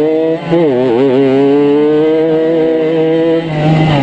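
A 50cc two-stroke racing moped engine running at high revs. The throttle is lifted briefly about half a second in, the note dips and climbs back up, and the engine holds high revs again until it eases off near the end.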